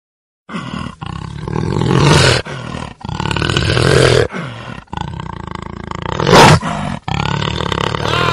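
Dinosaur roar sound effect: a string of loud roars broken by abrupt short gaps, starting about half a second in, the loudest about six seconds in.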